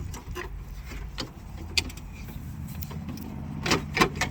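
Scattered clicks, knocks and rattles of a wiring harness and its connector being handled and fed through the inner panel of a truck door, with the loudest knocks near the end, over a steady low hum.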